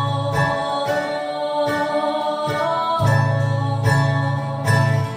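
Acoustic guitar strummed live, with a crowd of voices singing long held notes along with it.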